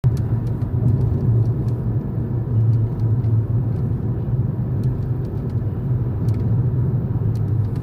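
Steady low rumble of a car on the move, road and engine noise as heard inside the cabin, with faint light ticks now and then.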